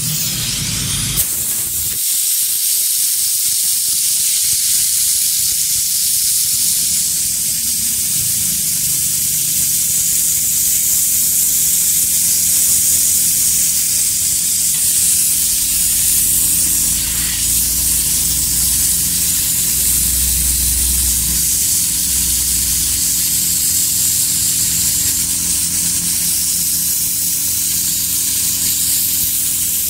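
Compressed air hissing steadily from a brass-tipped air blow gun aimed at the painted emblem of a motorcycle engine cover, blowing the untidy paint and dried soap mask off the raised Yamaha lettering.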